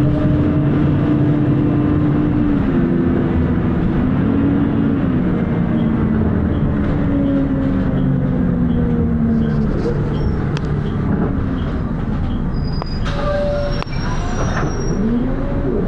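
Volvo B10BLE bus's diesel engine and cooling fan heard from inside the saloon as the bus drives along: a steady, loud drone whose engine note falls, rises and shifts several times as the ZF automatic gearbox changes gear.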